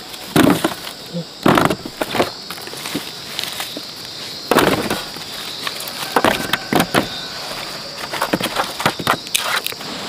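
Cassava roots being tossed by hand into a woven bamboo basket, knocking against one another and the basket in a run of irregular knocks and thuds, with a steady high insect-like hum behind.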